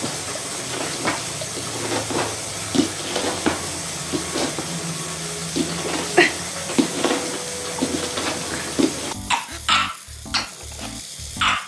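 Steady hiss with scattered light clicks and rustles on a hard floor. About nine seconds in, this gives way to a simple repeating electronic tune with a few sharp clacks.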